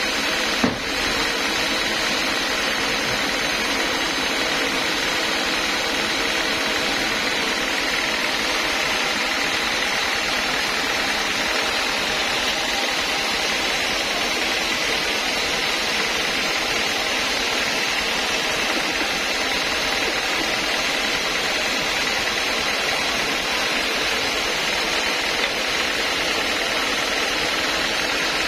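Homemade band sawmill running steadily, a constant mechanical drone from its motor and blade. A single sharp knock about a second in.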